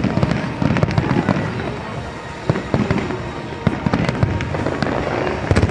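Fireworks display: aerial shells bursting in a rapid, irregular run of bangs and crackles.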